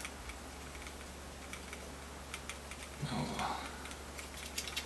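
Faint, irregular small clicks and ticks of hands and a tool working strings and tuner posts on an electric guitar headstock, with a short low vocal murmur about three seconds in.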